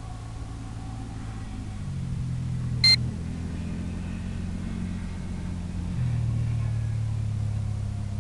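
A steady low mechanical drone that steps in pitch and loudness about two seconds in and again about six seconds in. A single short electronic beep sounds about three seconds in.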